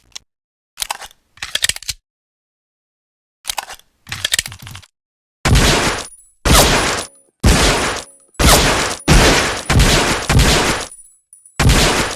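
Colt M1911A1 .45 ACP pistol firing a string of about eight loud shots, roughly one a second, each with a short ringing tail, after a few softer sharp clicks and knocks.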